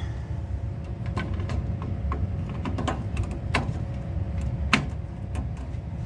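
Scattered clicks and knocks of a circuit card, the march time card of a Simplex 2001 fire alarm panel, being slid into its card-cage slot and seated in the motherboard connector. The loudest knock comes near the end, over a steady low rumble.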